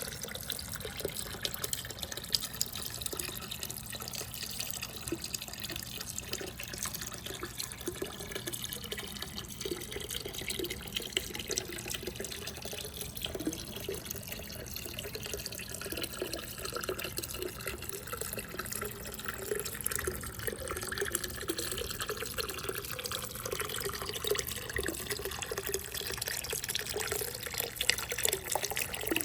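Water running and gurgling steadily through a toy water marble run track, with scattered small clicks of the balls and plastic parts.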